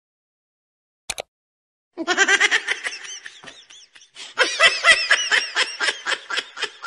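High-pitched cackling laughter: a rapid run of repeated 'ha' bursts that starts about two seconds in, after silence broken only by a brief click about a second in.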